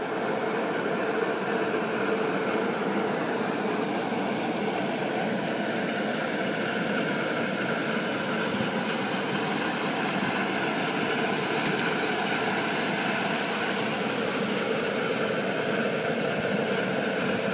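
Rooftop ventilation fans running: a steady, even hum and rush with several held tones in it.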